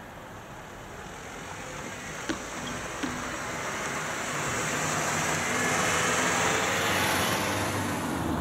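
A car pulls away across a level crossing and passes close by, its engine and tyre noise building to a peak near the end. About two seconds in come two sharp thumps, under a second apart, as its front and rear wheels go over the rails.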